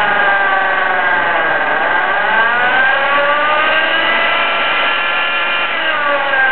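A Jeep's strange whirring whine. Its pitch sinks over the first two seconds, climbs again, holds steady, then falls once more near the end, following the speed of whatever is turning.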